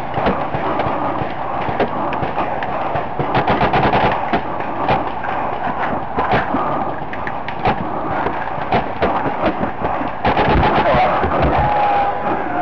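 Paintball markers firing, short sharp pops at an irregular pace, with a quick run of shots about three to four seconds in.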